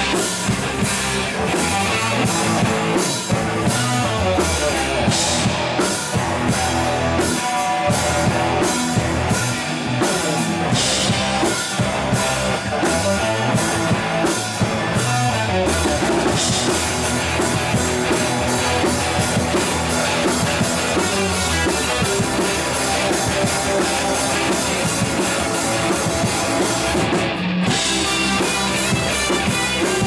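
Live rock band playing, with electric guitars, a bass guitar and a drum kit. The drums keep a steady beat, the band grows denser about halfway, and there is a brief break near the end.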